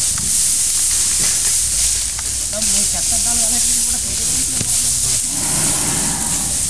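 Steady, high-pitched shrill hiss of an insect chorus, with low murmured voices briefly about three seconds in and again near the end.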